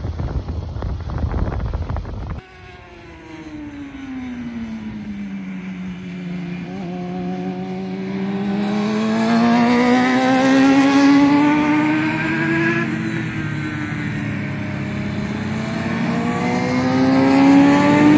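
Wind buffeting the microphone of a moving motorcycle, cut off sharply about two seconds in. Racing motorcycles circling a track follow: their engine note falls, then climbs as they work through the bend, dips once, and climbs again, growing louder near the end.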